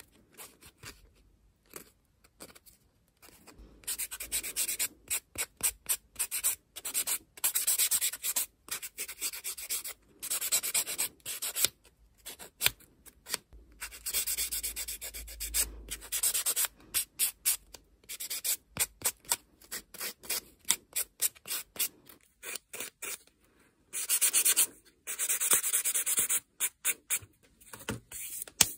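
Nail file rubbing back and forth over a fingernail in quick strokes, in runs of a few seconds with short pauses between them.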